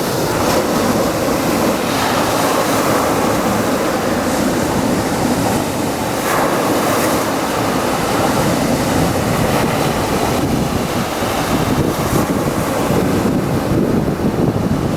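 Sea waves breaking and washing onto the beach, with wind buffeting the microphone.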